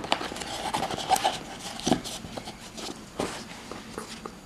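Handling noise of a smartwatch being pulled out of its cardboard box on its holder: light rustling of the packaging with a few short taps and knocks.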